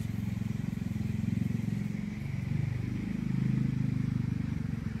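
An engine running steadily, its pitch shifting briefly about two seconds in.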